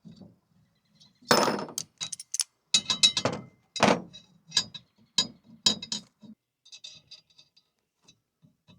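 Hand tools clinking and knocking on steel parts of a sawmill's head-lift crank as a lock nut is snugged up on the threaded rod. A run of sharp, irregular metal strikes with some ringing starts about a second in, then gives way to lighter ticks.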